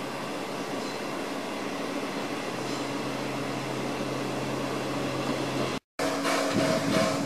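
Standing steam locomotive (Finnish Hr1 No. 1009) simmering: a steady hiss with a low hum. After a cut near the end it is louder and closer, the hiss now with a quick rhythmic pulsing.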